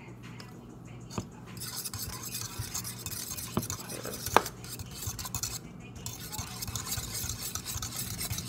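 Egg and cinnamon mixture being stirred briskly with a utensil in a stainless steel bowl: fast, continuous scraping and clinking that starts about a second and a half in, with a sharp clink against the bowl about four seconds in.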